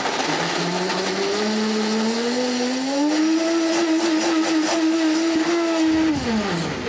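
Blendtec countertop blender puréeing figs and water into a compote. The motor whine climbs in pitch over the first few seconds, holds steady, then winds down and stops near the end.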